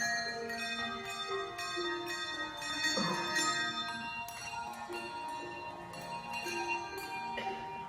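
A handbell ensemble playing a piece of music: many tuned handbells are rung in turn, and their clear notes ring on and overlap one another.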